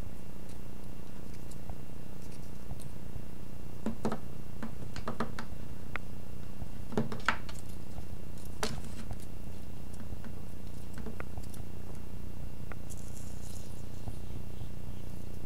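A cat batting at a feather wand toy around rattan furniture: scattered light taps, clicks and rustles, bunched in the middle and with a short scratchy rustle near the end, over a steady low hum.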